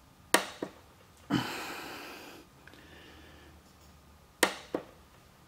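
Torque wrench clicking as it is pulled on an ER32 collet nut through a torque wrench adaptor: two sharp clicks close together near the start and another pair about four and a half seconds in, with a short rush of noise in between.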